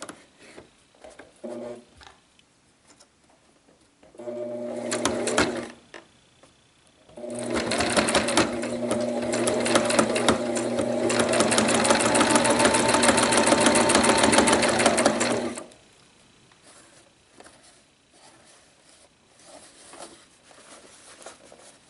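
Electric domestic sewing machine sewing a straight stitch along a zipper through denim: a short burst about four seconds in, then a steady run of about eight seconds with a low motor hum under rapid, even needle strokes. Before and after, only faint fabric handling.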